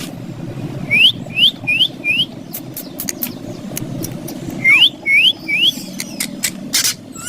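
Green ringneck parrot giving short upward-sweeping squeaky calls in two quick runs, four and then three, with scattered sharp clicks in between over a steady low background hum.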